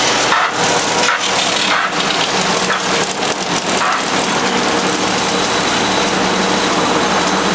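Botchan Ressha replica locomotive with its diesel engine running close by, a loud steady hiss over a low hum, with a few sharp puffs in the first two seconds.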